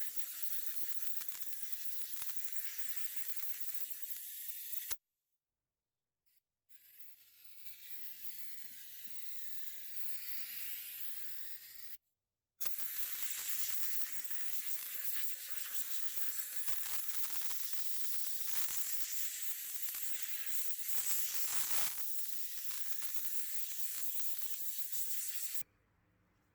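Steady hissing spray of surface-prep cleaner (wax and grease remover) being sprayed onto a sanded alloy wheel ahead of filling. It breaks off abruptly twice.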